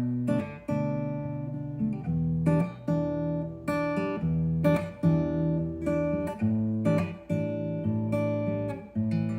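Acoustic guitar strumming chords, a new strum every half second to a second, each chord left to ring.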